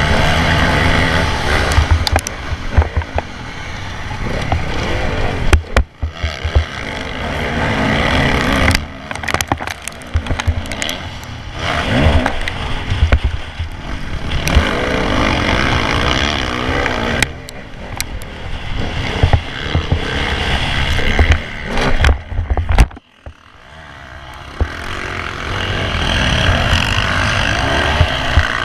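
Onboard sound of a Honda motocross bike's engine under race throttle, the pitch rising and falling as it revs up and shuts off, with rushing noise on the camera microphone. The sound drops away sharply twice, about six seconds in and again after twenty-two seconds, before the engine picks up again.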